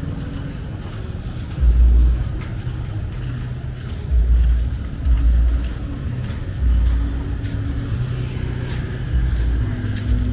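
Street traffic: vehicle engines running, with deep low rumbles swelling up every second or two.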